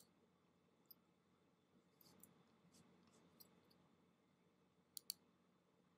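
Faint, scattered computer mouse clicks over quiet room hiss: a sharp click at the start, a few softer ones through the middle, and a quick double click about five seconds in.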